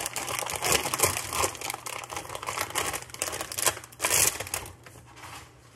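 Plastic bag of sliced cheese crinkling and rustling as it is handled and slices are pulled out. The crinkling comes in bursts, loudest at the start and twice about four seconds in, then dies down near the end.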